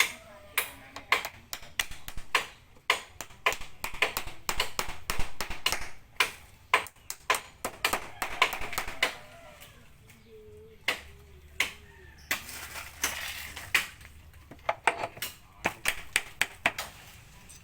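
A rapid, irregular run of sharp clicks and knocks, several a second, easing off for a couple of seconds in the middle before picking up again.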